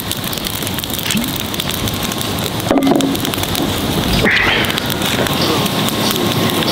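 Wood fire burning: a dense, steady crackling and hissing that grows a little louder about three seconds in.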